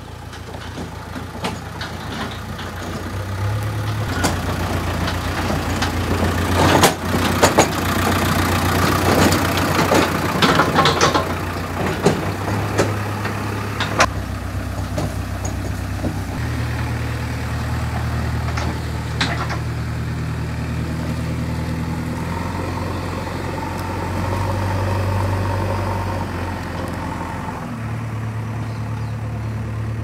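JCB 3DX backhoe loader's diesel engine running steadily as the machine drives, its engine speed stepping up and down several times. Sharp knocks and clatter come in bursts during the first half.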